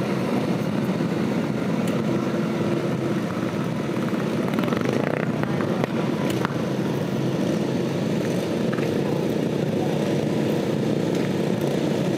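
A pack of racing lawn mowers' small engines running together at a steady level.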